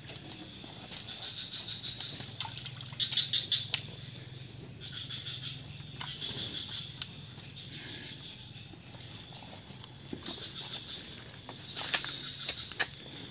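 Cattle drinking salt water from a plastic bucket, slurping and sucking in short bursts, loudest about three seconds in and near the end, with a steady high insect buzz behind.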